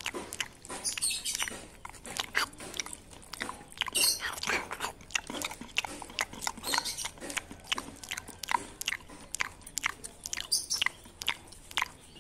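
A macaque chewing stir-fried water spinach (oseng kangkung) right at the microphone: a steady run of sharp crunching chews, about two or three a second.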